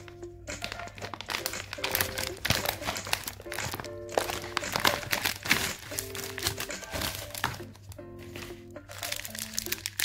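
Crinkling plastic wrappers as a KitKat share bag is opened and its individually wrapped mini bars are handled, in dense, irregular crackles. Background music with held notes plays underneath.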